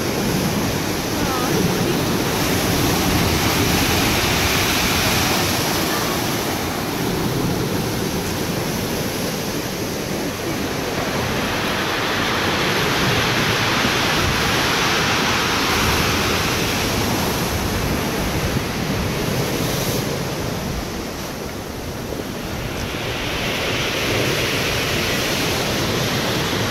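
Rough storm sea breaking against a stone harbour wall: a steady roar of surf that swells three times as the bigger waves come in and break.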